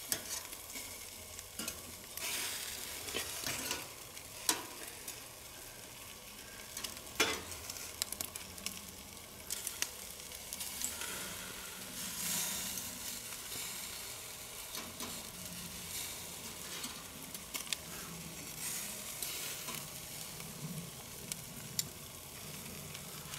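Pork neck steaks, bacon and peppers sizzling over charcoal on a grill grate: a steady hiss with crackle. A few sharp clicks of metal tongs against the grate.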